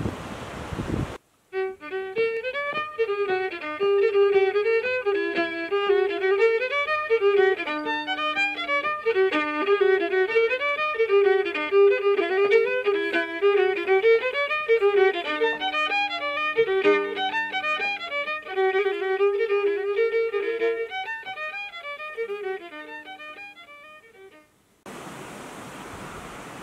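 Background music: a solo fiddle playing a fast run of notes with occasional held lower notes, fading out near the end. Wind buffets the microphone briefly at the start and again after the music ends.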